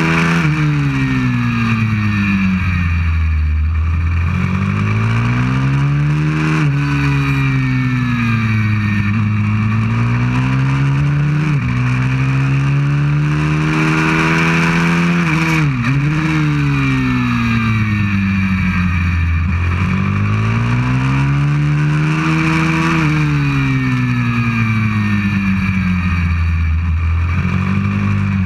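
190cc pit bike's single-cylinder four-stroke engine heard onboard at racing pace. Its pitch climbs under acceleration, drops sharply at gear changes and falls away when it slows for the corners, several times over, with wind rushing over the microphone.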